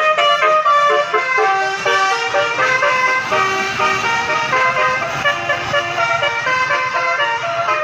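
Bus telolet horn, a 9-note set of 12 air-horn trumpets, playing a fast melody of quickly changing, overlapping tones over a low rumble.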